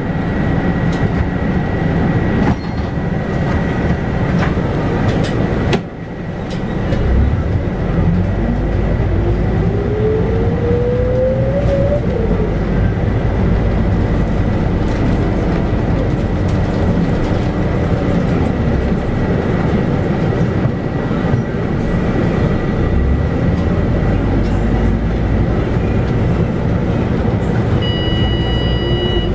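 Scania K94UB bus heard from inside while under way: the 9-litre six-cylinder Scania DC9 diesel and road noise. About eight seconds in, the engine's pitch rises steadily for a few seconds as the bus accelerates, then drops as the ZF automatic gearbox changes up.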